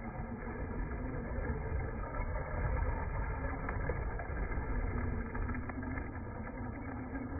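Absima ASB1BL brushless 4WD RC sand buggy driving over gravel, heard as a steady, muffled low rumble with no high end.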